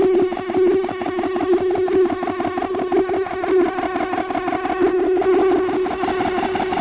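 Ambient drone music: a dense, noisy wall of distorted, effected sound holding one steady note, with a rapid flutter running through it.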